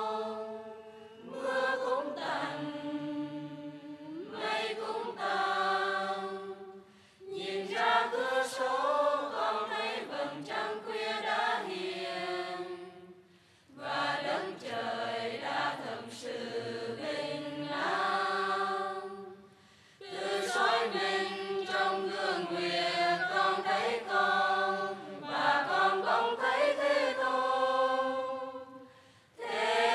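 Buddhist monastic choir singing a slow melody in long phrases, with brief pauses between phrases about every six to seven seconds.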